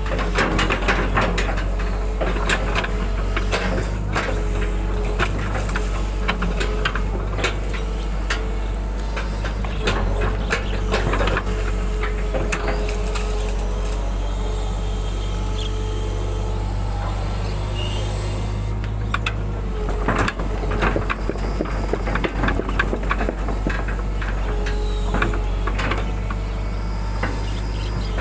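Hydraulic excavator working, its diesel engine running steadily with a hydraulic whine, and frequent sharp knocks as the bucket digs. The low engine note shifts about two-thirds of the way in.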